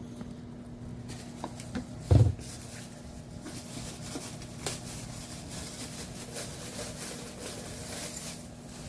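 Plastic food-storage containers being handled and set down: one dull thump about two seconds in, then light clicking and rustling of plastic, over a steady low hum.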